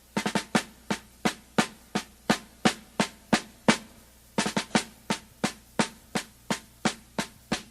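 Drum in music playing a steady march-like beat, about three sharp hits a second, with quick flurries of strokes near the start and a little past halfway.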